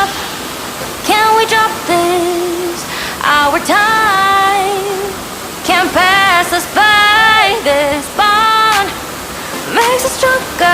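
A woman singing without backing: long held notes that slide up into pitch, in phrases with short breaks. Under the voice runs a steady rushing hiss of falling water.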